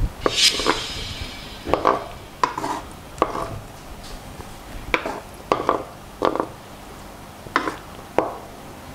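Wooden spatula knocking and scraping against a frying pan as food is stirred: irregular clacks, roughly one a second, with a short hiss about half a second in.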